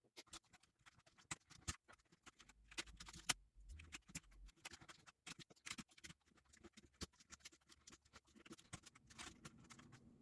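Faint, irregular plastic clicks and taps as keycaps are worked loose and handled on a HyperX Alloy Origins mechanical keyboard, with one sharper click a few seconds in.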